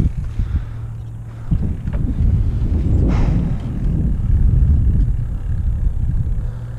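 Wind buffeting a GoPro's microphone while riding a bicycle: a loud, dense low rumble, with a brief rush of noise about three seconds in.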